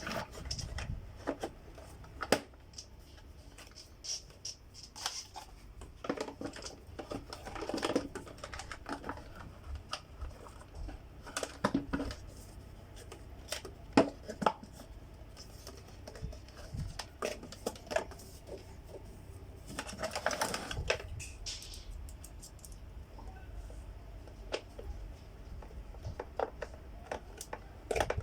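Clicks, light knocks and scraping of a Samsung SC4520 vacuum cleaner's plastic housing parts being handled and fitted back together during reassembly, with a sharper knock about two seconds in and another about fourteen seconds in.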